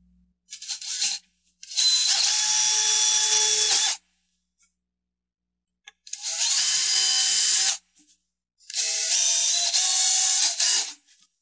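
Cordless drill boring pilot holes into oak boards, so the screws don't split the wood. A brief blip about half a second in, then three separate runs of steady drilling, each about two seconds long.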